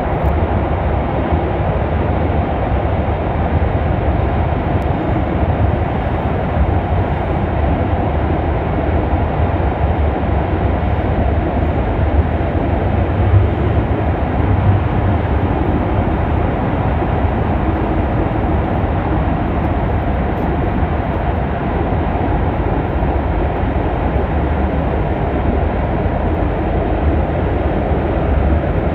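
Fertagus electric commuter train running at a steady speed, heard from inside the carriage: a continuous deep rumble and hiss of the wheels on the rails.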